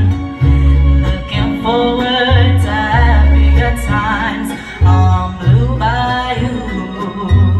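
Mariachi band playing a song with singing: deep bass notes repeating under a wavering melody line.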